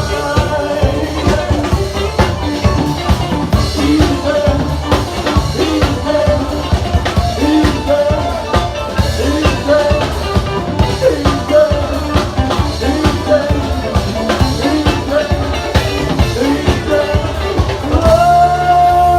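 Live rock band playing loud, with drum kit and a busy melodic lead line over it; a long held note comes in near the end.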